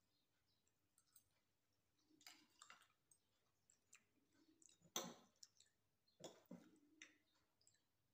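Faint clicks and light scrapes of forks against china plates while people eat, the sharpest click about five seconds in.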